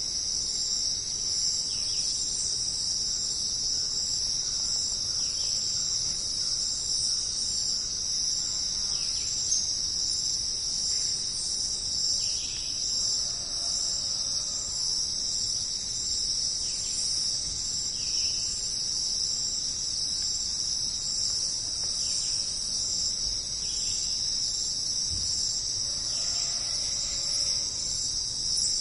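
Dense jungle insect chorus: a steady, high-pitched shrill drone, with a few faint short chirps over it now and then.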